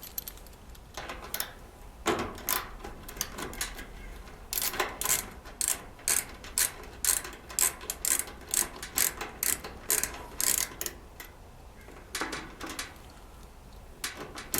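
A 1/4-inch nut driver clicking on its ratchet in quick regular strokes, about two to three a second, while it turns out a screw on the dryer's power-cord connection. There are a few scattered clicks first and a pause shortly before the end, after which the clicking starts again.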